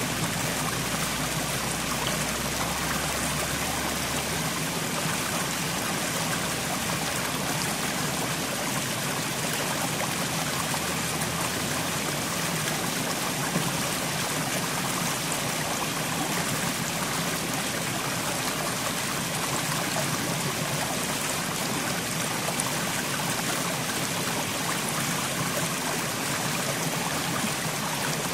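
Mountain stream flowing over rocks, a steady rush and gurgle of running water.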